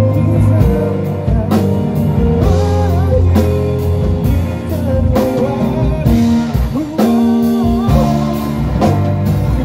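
Live band playing together: keyboard chords in jazz-gospel voicings (A-flat add9, E augmented 7 flat 9) over electric guitar, with a steady drum beat of drum and cymbal hits about twice a second.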